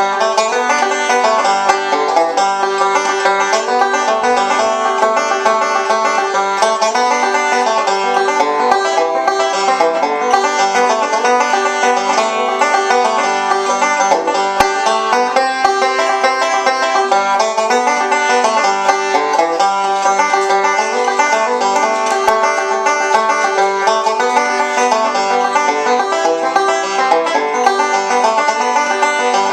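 Music played on a plucked string instrument: an unbroken stream of quickly picked notes over a steady ringing note.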